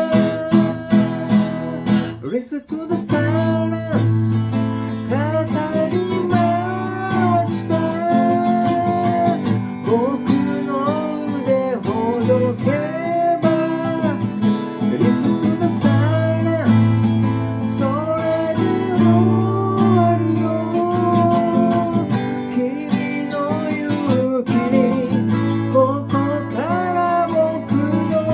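Acoustic guitar playing a song's instrumental passage, chords strummed and picked with a melody line moving over them.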